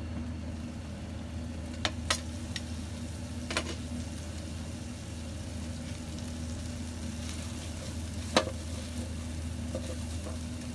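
Chickpeas and bacon sizzling in a frying pan as a spatula stirs them, with a few sharp knocks against the pan, the loudest about eight seconds in. A steady low hum runs underneath.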